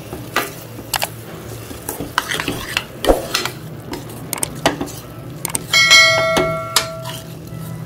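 A metal spoon stirring and scraping spiced masala paste frying in a stainless steel pan, in short repeated strokes with a faint sizzle. A little after halfway the spoon strikes the pan and it rings for about a second.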